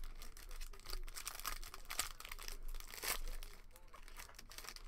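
A trading card pack's plastic wrapper being torn open and crinkled by hand: a busy run of crackling rustles with the loudest tearing about two and three seconds in.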